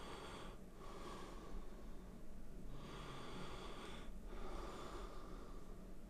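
A person breathing slowly through the nose, close to the microphone: about two full in-and-out breaths.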